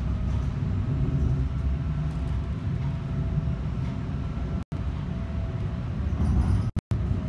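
Low rumble of a moving vehicle with a faint steady whine above it. The sound drops out abruptly for an instant twice, once past the middle and again near the end.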